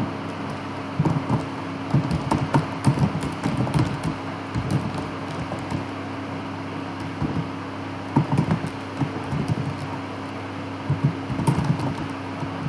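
Typing on a computer keyboard in several bursts of quick keystrokes, over a steady low hum.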